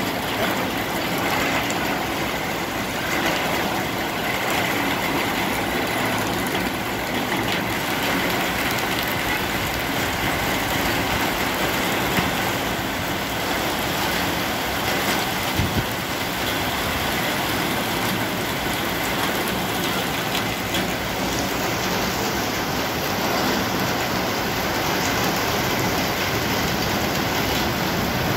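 Heavy rain pouring steadily onto a flooded street and parked cars, an even hiss that holds level throughout.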